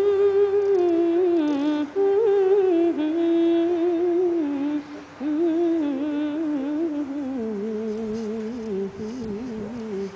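A voice humming a slow, wordless melody with vibrato, in long phrases with short breaks, stepping down to a lower held note near the end.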